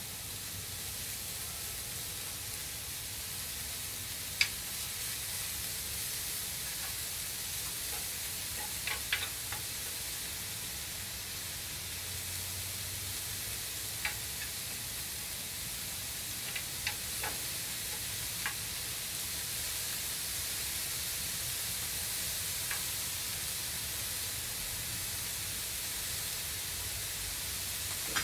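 Beef brisket slices and bean sprouts sizzling in a hot griddle pan, a steady hiss, with scattered sharp clacks of wooden tongs against the pan as the food is tossed, the loudest about four seconds in.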